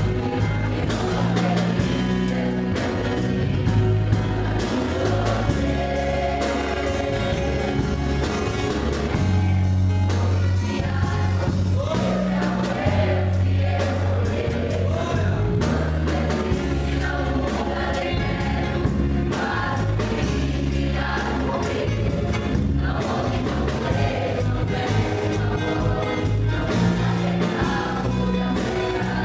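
A choir singing a gospel hymn over instrumental accompaniment, with a bass line moving in held notes underneath.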